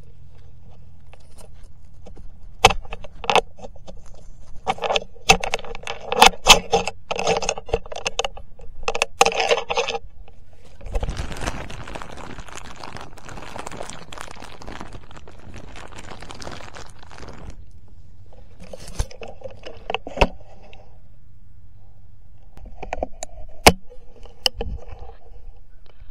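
Handling noise right at a hunter's body-mounted camera: clothing and gear rustling, with clusters of sharp clicks and metallic rattles. A longer stretch of steady rustling comes in the middle.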